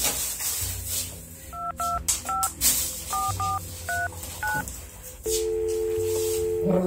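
Touch-tone beeps from a mobile phone keypad as a number is dialled: seven short beeps over about three seconds. Then a steady two-note phone tone lasts about a second and a half near the end.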